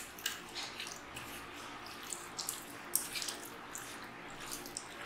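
A bare hand mixing raw chicken pieces into a wet coating of gram flour and rice powder: irregular soft squelches and wet smacks, the sharpest about three seconds in.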